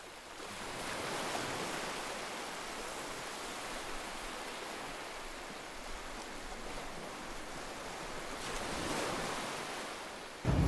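Ocean surf breaking on an offshore reef, a steady wash of noise that swells a little about a second in and again near the end. A sudden louder low rumble breaks in at the very end.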